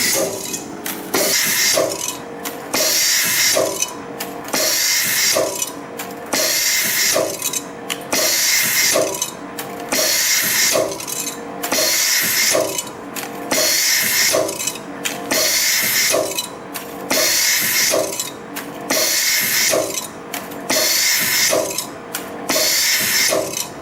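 YHM PR-24 CNC piston ring machine forming rings from wire, running in a steady repeating cycle of about one every two seconds, each cycle a loud noisy stretch punctuated by sharp clicks.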